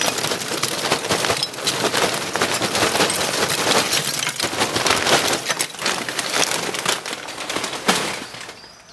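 Lump charcoal poured from a paper bag into a ceramic kamado's firebox: a dense rattle of pieces landing on leftover charcoal, which stops near the end.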